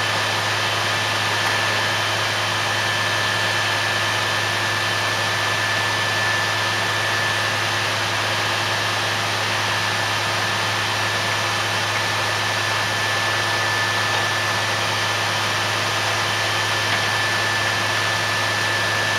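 Well-drilling rig running steadily while it bores the well: a loud, even mechanical hum and hiss with a steady high whine over it.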